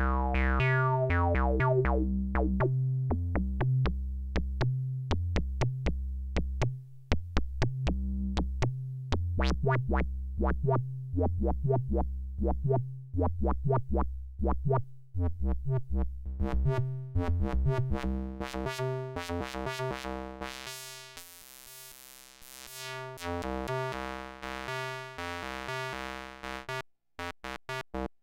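Fred's Lab Zekit hybrid analog-digital synthesizer playing a repeating sequence while its envelope knobs are turned, so the notes keep changing length and brightness. The notes start long and overlapping, become short plucks, turn bright and buzzy for a few seconds around twenty seconds in, and end as very short clipped notes after a brief drop-out.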